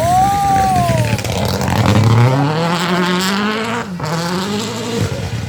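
Rally car engine under hard acceleration, its revs climbing for about two seconds before cutting off sharply around four seconds in, as at a gearshift or a lift off the throttle. Before the climb there is a brief high rising-then-falling note.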